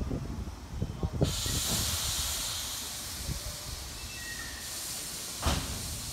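Compressed air hissing from a stopped Keikyu 600 series electric train's pneumatic system. It sets in suddenly about a second in and holds steady while slowly fading. There is one sharp knock about five and a half seconds in.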